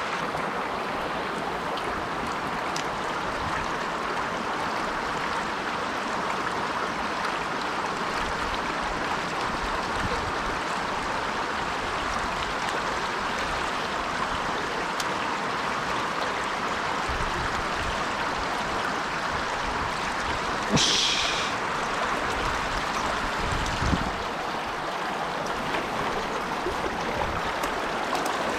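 Mountain stream water rushing steadily over rocks. A brief sharp, hissy sound cuts through about two-thirds of the way in, and a short thump follows a few seconds later.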